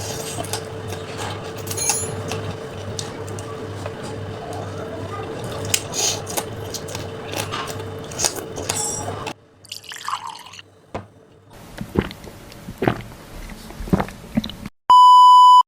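Wet, crackling, dripping sounds with many small clicks over a steady hum. About nine seconds in they turn quieter and sparser. Near the end a loud, steady beep tone sounds for under a second.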